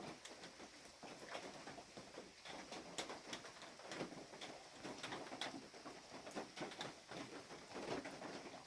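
Rain dripping and pattering irregularly onto the forest shelter, a scatter of soft taps over a faint hiss of wind and rain.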